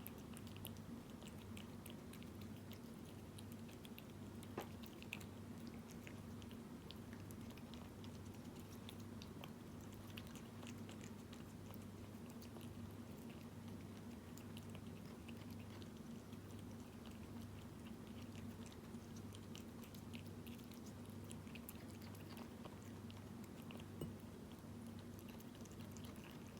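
A cat chewing wet food in jelly: faint, soft chewing clicks throughout, with a sharper click about four and a half seconds in and another near the end, over a steady low hum.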